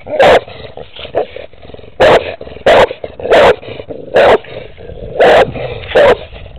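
A pit bull–type dog barking: seven loud, short barks, roughly one a second, with a slightly longer gap after the first.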